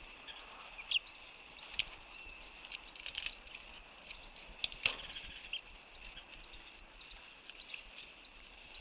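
Faint outdoor ambience from an eagle-nest camera microphone: a steady high hiss with scattered short chirps and a few sharp clicks, the loudest click about five seconds in.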